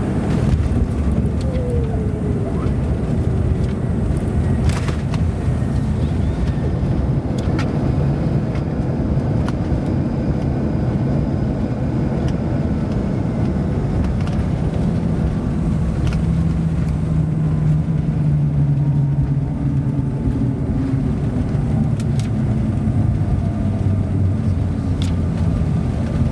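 Cabin noise of a CRJ700 regional jet landing: a steady, loud low rumble of engines, airflow and wheels, with a few sharp knocks. A deeper drone swells for a few seconds past the middle.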